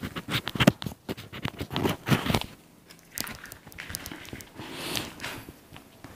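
Clip-on lavalier microphone being handled against a shirt: irregular rustling and crackling with sharp clicks, loudest about two-thirds of a second in.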